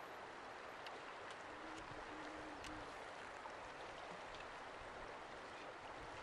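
Shallow, fast mountain river rushing steadily over stones, with a few faint splashes as a person wades through it.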